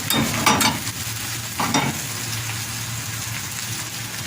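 Food frying in hot oil and butter with a steady sizzle, with a few knocks of cookware in the first two seconds.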